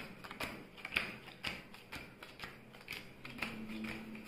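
Playing cards being handled and dealt: a run of light, irregular card snaps and clicks, about two a second.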